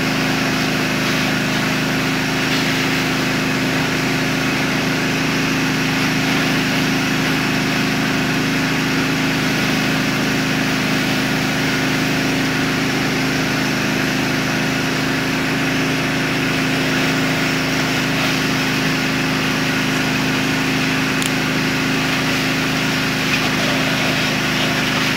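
A fire engine's motor running steadily while it pumps water to the hose line, with an even hiss over it from the spray and steam on the burning truck.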